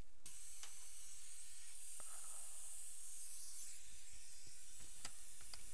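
Steady high-pitched hiss that comes on abruptly just after the start, with a few faint clicks.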